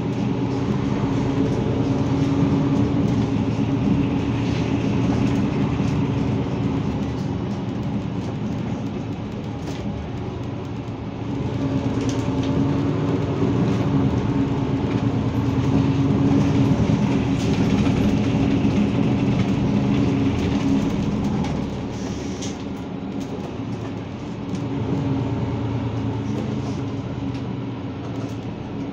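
Interior sound of a Mercedes-Benz Citaro G articulated city bus on the move: engine and drivetrain running with a steady hum that swells and eases a few times as the bus pulls away and slows, with an occasional brief rattle.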